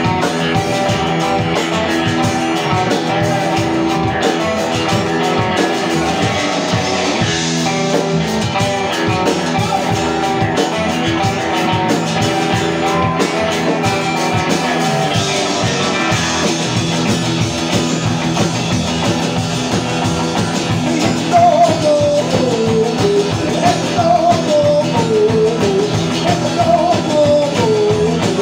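Live band playing an outlaw country/rock song on acoustic guitar, electric guitar, upright bass and drum kit. Over the last several seconds a run of falling, sliding notes rises above the band.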